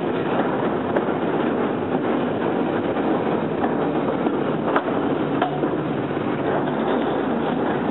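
Electric tram Sheffield 74 running along the track, heard from its open back platform: a steady rumble of steel wheels on rail. A few sharp clicks, most of them around the middle, come as the wheels cross rail joints and pointwork.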